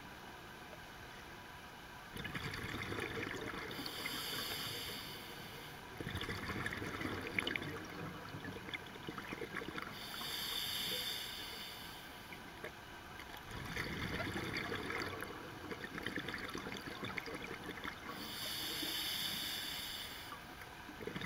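A scuba diver's regulator breathing, heard underwater. There are about three breath cycles, each a short hiss as air is drawn through the regulator and a longer crackling rush of exhaled bubbles.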